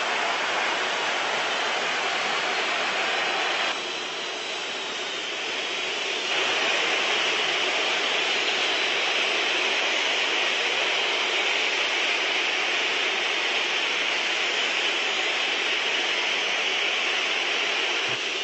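Large football stadium crowd making a dense, steady roar of massed voices and whistling. It dips for a couple of seconds about four seconds in, then swells again and holds.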